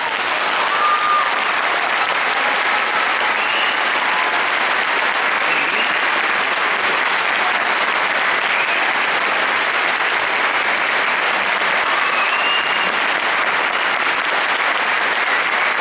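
Concert audience applauding steadily after a performance, with a few voices calling out above the clapping.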